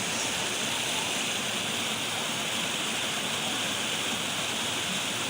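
Running water rushing steadily, an even hiss with no breaks.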